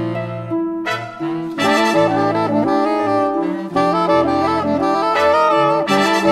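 Instrumental jazz background music, a horn melody over a bass line that steps from note to note, growing fuller about a second and a half in.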